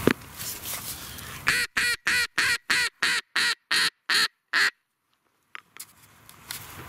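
Mallard duck call blown as a quick string of about a dozen loud quacks, the gaps between them widening toward the end, calling to passing mallards. A short knock comes right at the start.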